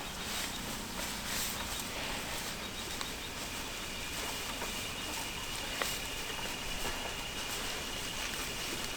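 Outdoor farm ambience: a steady rustling hiss with a few small clicks, and a faint steady high whine coming in about halfway through. No animal calls.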